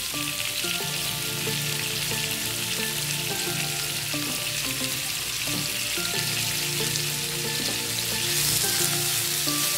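Sliced onions sizzling steadily in hot oil in a pan, freshly added to the heated oil for frying.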